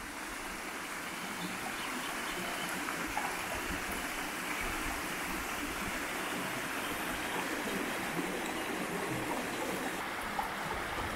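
Creek water running steadily over rock shelves and small cascades.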